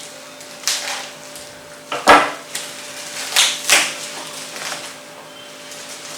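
Handling noises: a few sharp knocks and clatters of hard objects being set down and moved, the loudest about two seconds in, with two quick ones close together near the middle.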